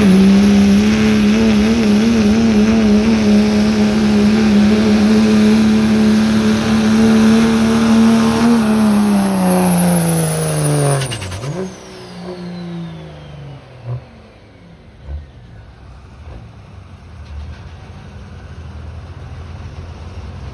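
Diesel Dodge Ram pickup pulling a sled at full throttle, its engine held high with a wavering pitch over a high turbo whistle. About eight seconds in the revs start to fall, and near eleven seconds the engine drops off to idle while the whistle winds down.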